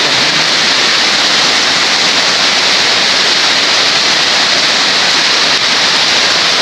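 Heavy downpour of rain: a loud, steady rushing hiss with no breaks.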